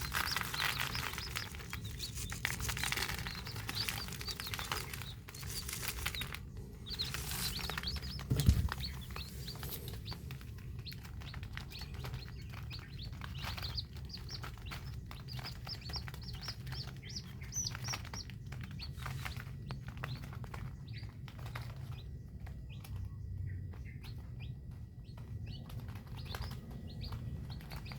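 Many young chicks peeping continuously, short high rising cheeps overlapping, with one dull thump about eight seconds in.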